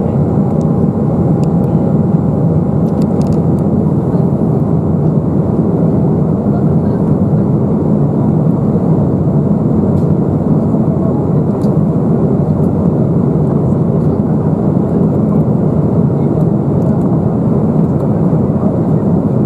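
Steady cabin noise inside an Embraer 195 in flight: the constant drone of its under-wing CF34 turbofan engines mixed with the rush of airflow over the fuselage.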